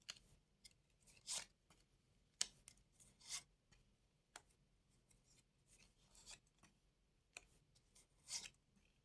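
Playing cards being handled and laid out: faint, brief swishes and soft snaps of cards sliding and slapping down, roughly once a second.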